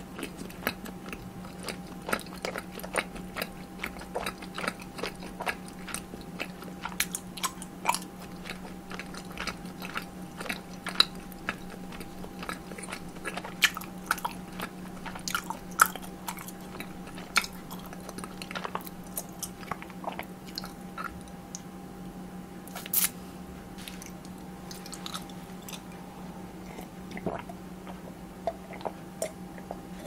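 Close-miked chewing and biting with crunchy, crackly clicks throughout, over a steady low electrical hum.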